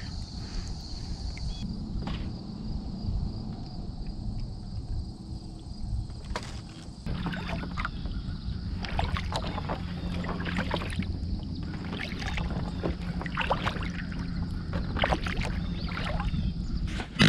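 Kayak paddle strokes: the blades dip and splash and water drips off them in irregular spells, thicker from about a third of the way in, over a low steady hum.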